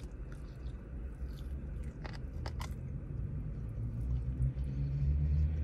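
A person biting into and chewing a chicken wing, with a few short crisp clicks of the bite, over a low steady hum.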